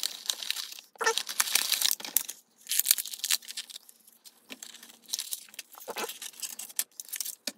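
Clear plastic blister bubble of a Hasbro Retro Collection action figure package crackling and crinkling as hands pull the figure out of it, in irregular bursts with short pauses.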